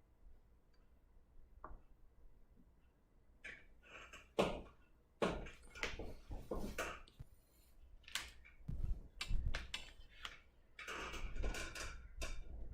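Handling noises: an irregular run of knocks, taps and rustling as things are moved about and set down, with a few dull thumps, starting about three and a half seconds in.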